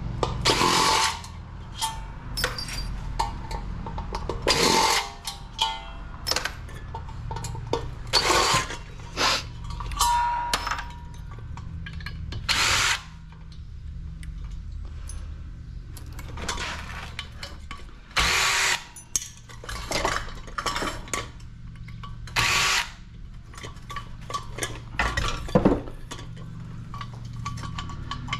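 Cordless drill-driver running in a dozen or so short bursts, backing screws out of a ceiling fan's metal housing, with small metal clinks of screws and parts between the bursts.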